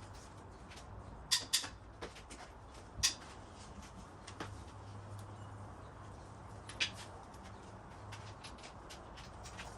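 Scattered metallic clinks and taps of hand tools on an engine being taken apart, with four sharper clanks among lighter ticks, over a low steady hum.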